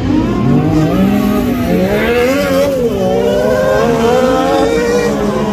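Engines of at least two racing buggies revving hard through a bend, their pitches overlapping and rising and falling as the drivers accelerate and lift off.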